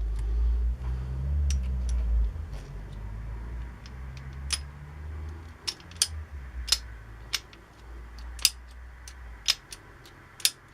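Irregular sharp metal clicks and taps, about a dozen, as small parts of an old hand drill are handled and fitted back together, over a low handling rumble that fades out in the first half.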